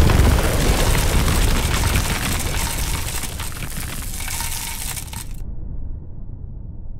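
Explosion sound effect: a loud blast right at the start, decaying into a long crackling, rumbling tail. The hiss cuts off suddenly about five seconds in, leaving a low rumble.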